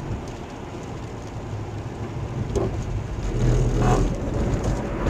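Car driving on a wet road, heard from inside the car: a steady rumble of tyres and engine that swells louder about three and a half seconds in.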